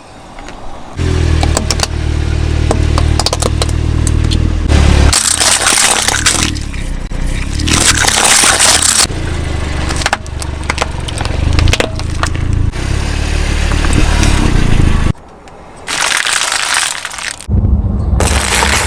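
Objects cracking and crunching as they are crushed under a car's tyre, in several loud bursts over a low steady drone.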